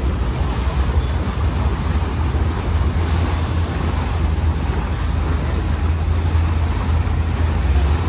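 Engine of a wooden abra water taxi running at a steady cruising speed, a constant low drone, mixed with the rush of creek water along the hull and wind on the microphone.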